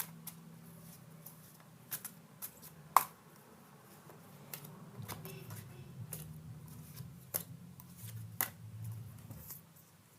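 Tarot cards being handled and laid out: scattered light taps and snaps of card stock, the sharpest about three seconds in, over a faint low hum.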